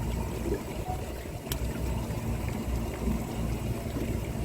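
Steady low rumble of the fishing boat's engine running, with a faint steady hum and one sharp click about one and a half seconds in.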